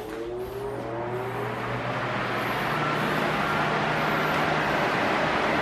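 Arno Silence Force 40 cm electric fan spinning up: a whine rising in pitch over the first two seconds or so and a rush of air growing louder, settling into a steady blow over a low motor hum.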